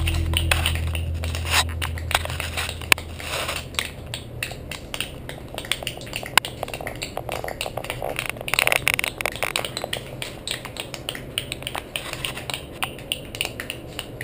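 Background music fading out in the first second or two, then irregular sharp clicks and crackles, with a brief hissing rush about nine seconds in.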